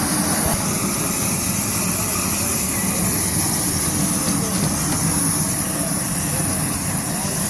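Steady low roar with a hiss from an outdoor oyster steamer as steam pours out of the opened box, with crowd voices under it.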